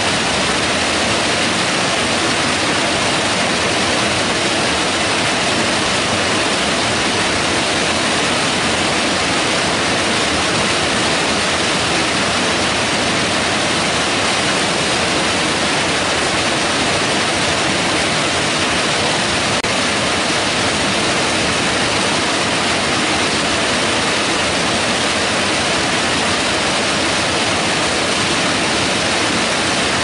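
Fast mountain creek rushing and cascading over boulders in small falls: a steady rush of whitewater with no change throughout.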